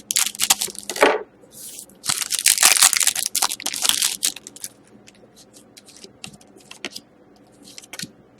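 Hockey card pack wrapper being torn open and crinkled in two bursts in the first four seconds, followed by softer scattered clicks and rustles as the cards are handled.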